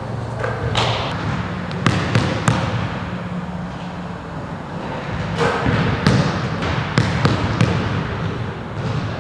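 Basketball bouncing on a hardwood gym floor: three quick bounces about two seconds in, and another run of bounces from about six seconds, over a steady low hum.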